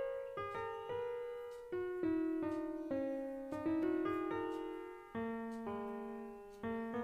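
Background piano music: a slow melody of single notes, each struck and then fading.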